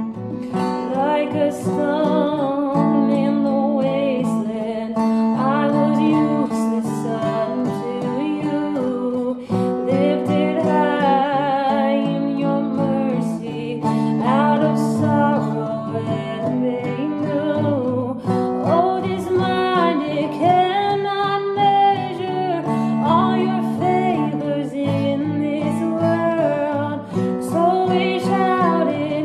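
A woman singing to her own acoustic guitar accompaniment, with steadily strummed chords under long, held sung phrases.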